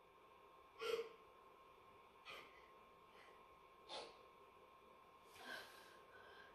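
A woman's quiet sniffs and sobbing breaths, four short ones about one and a half seconds apart, the first with a small voiced catch, against near silence.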